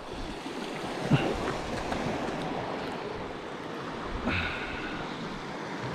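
Sea swell washing against the rocks, a steady wash of water, with a brief faint squeak about a second in.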